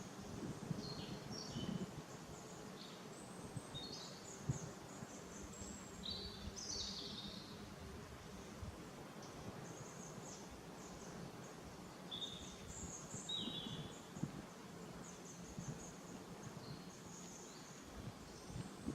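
Faint outdoor ambience: small birds chirping, with short high calls scattered throughout, over a steady low background noise.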